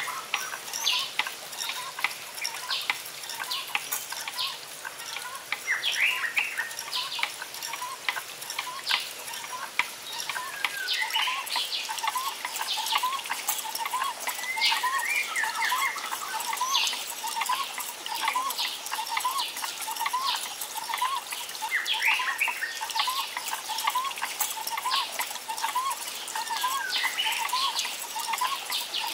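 Several wild birds chirping and calling, with short bright chirps and quick gliding notes. From about halfway through, one bird repeats a short lower call about every two-thirds of a second.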